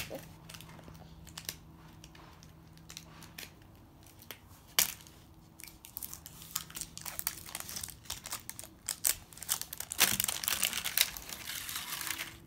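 Plastic wrapping of an L.O.L. Surprise ball crinkling and tearing as it is unwrapped by hand. There are scattered clicks, a sharp snap about five seconds in, and a dense stretch of crinkling from about ten seconds.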